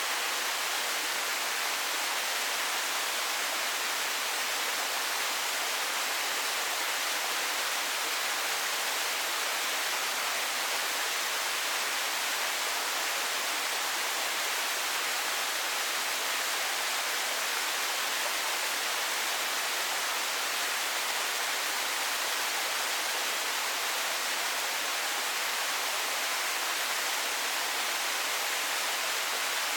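Small mountain waterfall, water falling and splashing in a steady, even rush.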